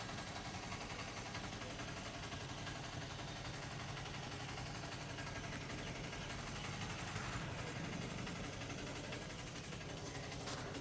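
Steady background of street traffic with an engine running at idle, as a low continuous hum. There is one short sharp sound near the end.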